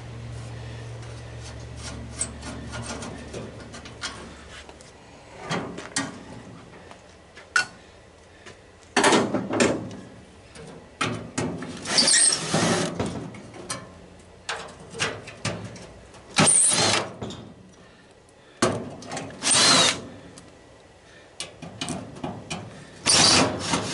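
Cordless drill run in short bursts, about five of them from about nine seconds in, backing screws out of a sheet-metal housing.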